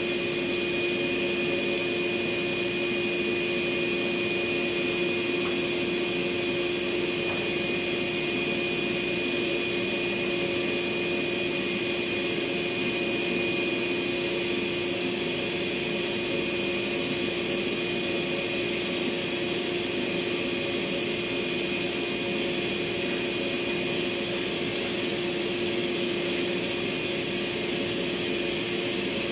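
Steady machine whir from a running electric motor, unchanging in level, with a low hum and a thin high whine held at a constant pitch.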